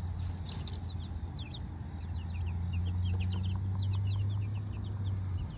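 Young chicks peeping: many short, high cheeps, scattered and overlapping, over a steady low hum.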